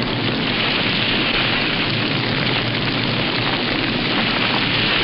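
Steady, even rushing noise with no breaks, a sound effect for a spaceship tumbling and falling.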